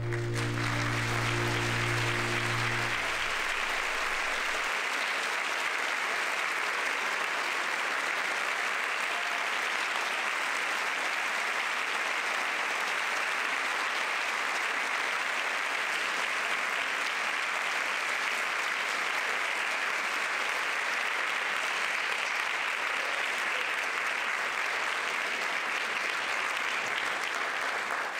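Audience applauding steadily, with a final held orchestral chord sounding under the clapping for the first three seconds before it stops.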